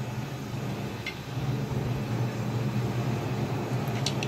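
A steady low mechanical hum, with a faint click about a second in and a few light plastic clicks near the end as a plastic modak mould is handled.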